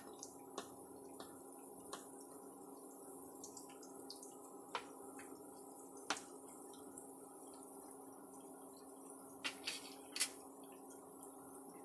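Malpua shallow-frying in ghee: a faint sizzle with scattered sharp pops and clicks, a few of them louder near the end, over a steady hum from the induction cooktop.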